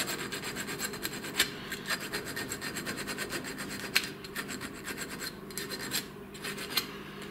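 Needle file rasping across the metal teeth of a gear in quick, short back-and-forth strokes, filing the edges of freshly cut teeth. The strokes pause briefly a couple of times near the end.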